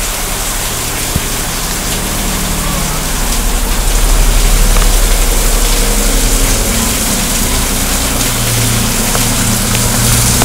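Rain falling, a steady loud hiss, with a low hum underneath at times.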